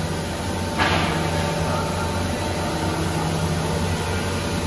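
Edge banding machine running steadily with a constant hum as a board panel is fed through it, with a short hiss about a second in.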